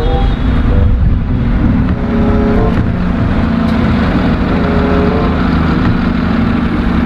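A motor vehicle's engine running loudly with a steady deep rumble.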